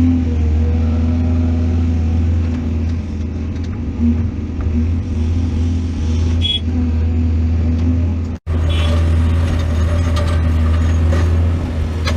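Heavy diesel earthmoving machinery running steadily with a deep, even engine hum, broken by a sudden brief gap about two-thirds of the way through.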